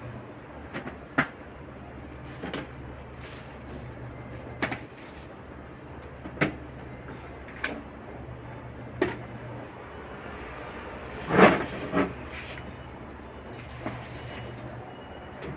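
Scattered knocks and clatters of items and shelves being handled while a fridge is emptied and cleaned. The loudest is a cluster about eleven and a half seconds in, over a steady low hum.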